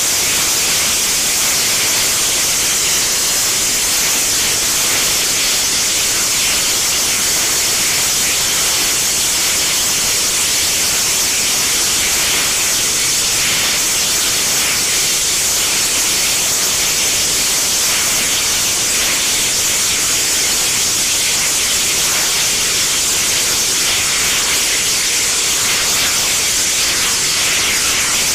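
Armadillo Aerospace VTVL rocket's engine firing steadily in flight, a loud, unbroken hiss-like roar that holds one level throughout.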